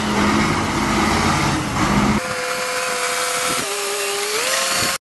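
Heavy diesel engine running, from a KamAZ dump truck, then an abrupt switch to a Caterpillar crawler bulldozer at work: a steady whine that drops in pitch about a second and a half later and climbs back near the end.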